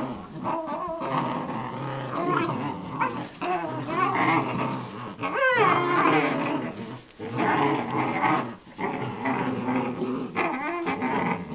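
Two Alaskan Malamute puppies play-fighting, growling and whining almost without a break, with a high cry that falls steeply in pitch about five seconds in.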